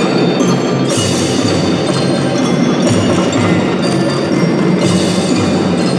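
Children's drum band playing a tune: a bright melody on glockenspiel-type mallet instruments over drums and percussion.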